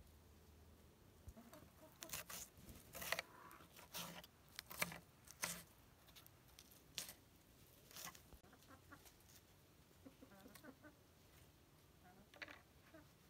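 Chickens clucking softly in short repeated calls, mostly in the second half. A series of sharp clicks or taps comes in the first half.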